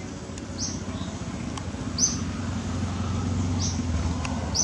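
Outdoor ambience: a steady low rumble that swells a little over three seconds in and then eases, with short high chirps repeating every second or so.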